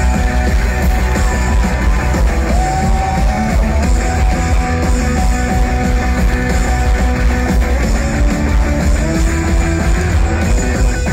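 Rock band playing live: electric guitar lines over bass guitar and drums, loud and dense, with a heavy, booming low end.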